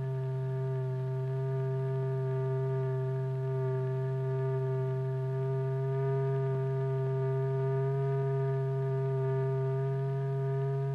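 Steady electronic tone with a low fundamental and a row of overtones, held unbroken: the note that sets a membrane vibrating in a cymatics experiment.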